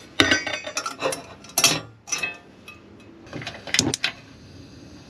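Stainless steel cookware clanking and clinking as pieces are handled and set down on a gas cooktop: several sharp metal knocks over the first four seconds.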